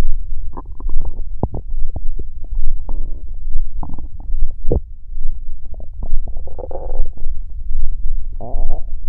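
A human stomach growling and gurgling: a low rumble that pulses about every three-quarters of a second, with bubbly gurgles about 3, 4, 7 and 8½ seconds in, and small clicks.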